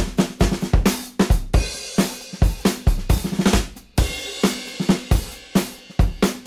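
Background music with a fast, steady drum-kit beat: kick drum, snare and cymbals.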